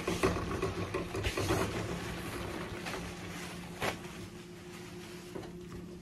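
Toilet paper being pulled off the roll of a wall-mounted Georgia-Pacific Compact dispenser: the paper rustles and the roll turns, loudest in the first two seconds and then easing off, with one sharp snap near four seconds in. A steady low hum sits underneath.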